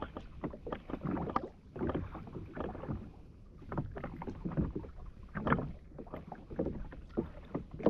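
Small waves lapping and slapping against the hull of a drifting 2020 Sea-Doo Fish Pro jet ski, in uneven splashes.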